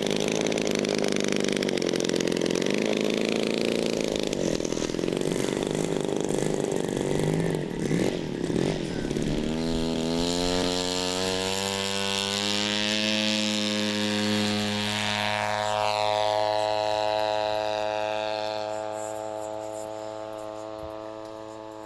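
Engine and propeller of a large radio-controlled scale Hawker Hurricane model, running roughly on the ground and then opening up about ten seconds in for the take-off run. Its pitch rises and holds high, then the sound fades as the plane climbs away.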